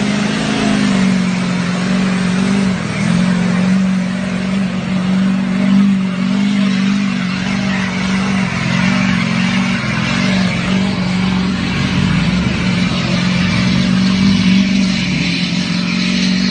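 Lifted mud truck's engine held at high revs in a loud, steady drone as the truck drives through deep mud, with a brief dip in pitch about three seconds in.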